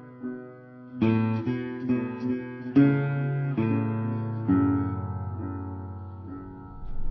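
Acoustic guitar intro of a country song, played back slowed down. Picked notes and chords ring and fade: a few soft notes, then a louder run of picked chords from about a second in, dying away toward the end.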